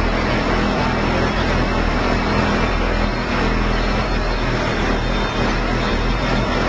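Car audio subwoofer system playing a loud, steady low bass tone, with a rough noisy wash over it.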